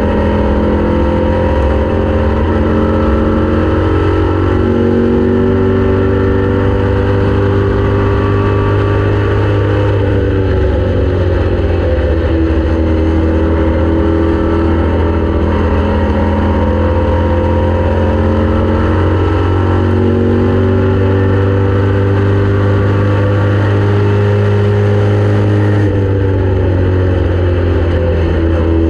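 Race car engine running hard at racing speed, its pitch climbing and dropping back several times as the car accelerates and lifts.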